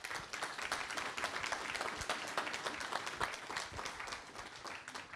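Audience applauding, many hands clapping densely, dying away near the end.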